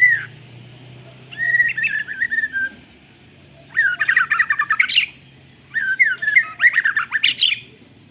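White-rumped shama (murai batu) singing three loud phrases separated by short pauses, the second and third built on fast rolling trills. The song mimics a canary, the learned 'canary fill' that keepers prize in this bird.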